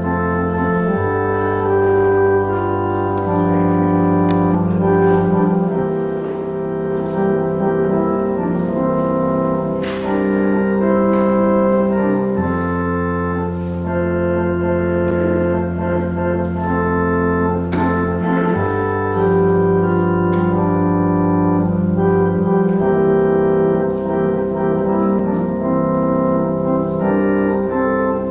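Organ music: sustained full chords over long held bass notes, the harmony changing slowly every few seconds.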